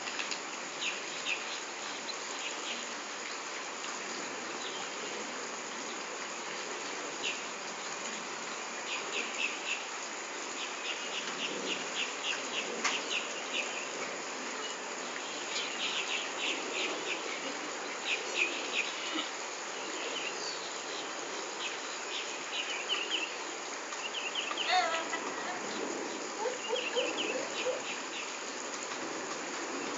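Insects chirping in short, rapid trills, again and again, over a steady background hiss, with a brief falling call about 25 seconds in.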